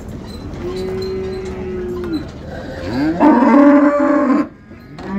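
Cattle mooing: a steady call about a second in, then a louder moo about three seconds in.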